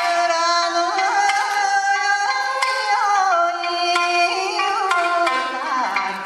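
Background music: a held melody with wavering, sliding ornaments over plucked strings.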